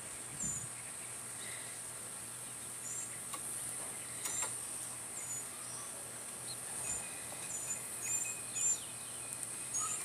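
Short, high bird chirps at irregular intervals, more of them in the second half, over a steady high-pitched hiss.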